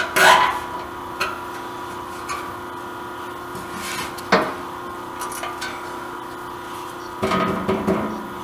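A plastic zip tie being fastened by hand under a truck: scattered light clicks and knocks, then a quick run of ratcheting clicks near the end, over a steady hum.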